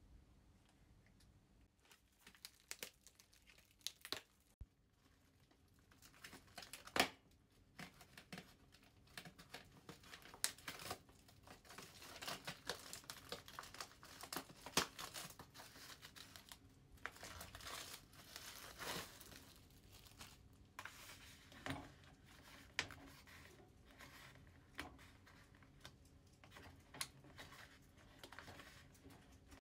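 Thin aluminium foil hot-pot pan and plastic food packaging being handled and bent into shape: irregular crinkling and crackling with scattered sharp clicks.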